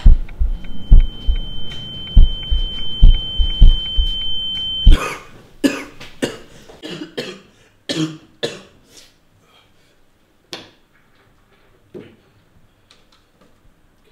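Deep thumps, about two a second, under a steady high ringing tone, both cutting off abruptly about five seconds in. Then a man coughs and clears his throat several times, growing fainter.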